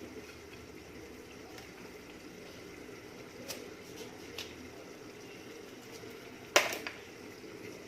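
Hands packing salt into halved lemons: faint wet handling sounds over a steady low background hum, with two light clicks midway and one sharp knock a little before the end.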